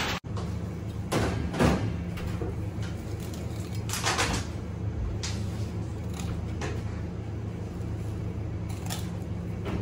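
Steady low hum of kitchen equipment, with a few short scrapes and knocks as a whole raw sea bass is pressed and turned on a plastic cutting board; the loudest knock comes about a second and a half in.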